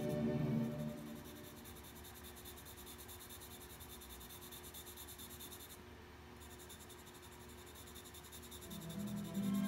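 Charcoal pencil scratching on toned drawing paper in a run of quick, short shading strokes. Background music fades out about a second in and comes back near the end.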